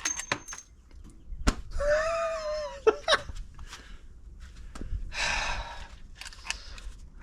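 Clicks and handling sounds from a screwdriver loosening the screw on a NEMA 6-50R 50 amp receptacle to open it. About two seconds in there is a squeak lasting about a second that drops in pitch at the end, and a short rasping scrape follows near five seconds.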